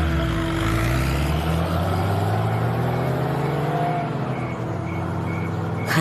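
Car engine pulling away, rising in pitch as it accelerates and then fading. Crickets chirp in a steady rhythm during the last couple of seconds, and there is a sharp click just before the end.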